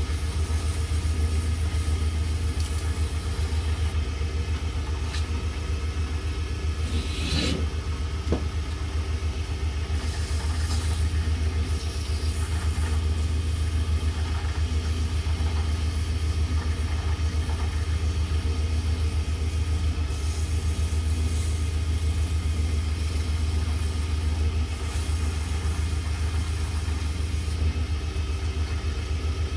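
Small wood lathe running with a steady electric-motor hum while a turning tool takes light cuts on a spinning mother-of-pearl pen blank, with a brief louder scrape about seven seconds in.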